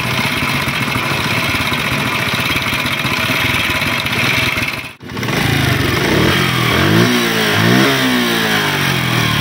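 Honda CD 70 motorcycle's small single-cylinder four-stroke engine running steadily, cutting out suddenly about five seconds in. It then runs again and is revved up and down twice near the end.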